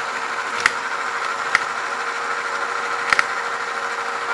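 Opened-up Tandy/Radio Shack Armatron's electric motor and gear transmission, running at about half speed with a steady whirring whine. A few sharp clicks come from the gearing, about one every second, with a quick double a little after three seconds in.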